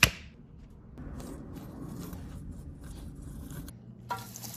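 Corn tortillas being cut into strips on a wooden tabletop: faint, irregular scraping and cutting sounds after a sharp click at the start. A steady hiss takes over near the end.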